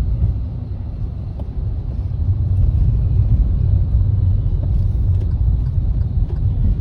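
Steady low rumble of a motor vehicle on the move, with no clear change in engine pitch.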